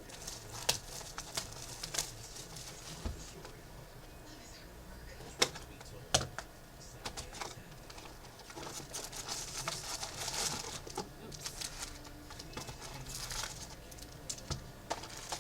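Hands opening a cardboard trading-card box and pulling out its foil card packs: scattered sharp clicks and taps, with a stretch of crinkling rustle about two-thirds of the way through.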